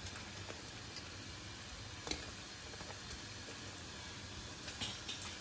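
Julienned carrots sizzling faintly in a little hot oil in a frying pan, with a few light clicks as more pieces are dropped in.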